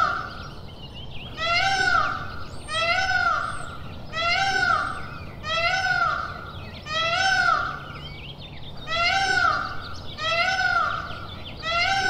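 Indian peafowl (peacock) calling over and over: a loud call that rises and falls in pitch, repeated evenly about once every second and a quarter.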